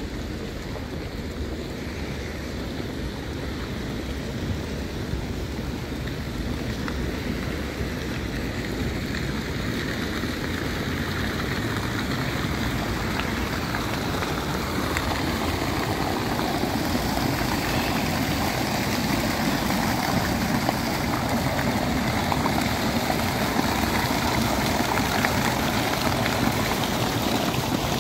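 Water jets of a fountain splashing into its basin, a steady noise that grows gradually louder as it comes closer.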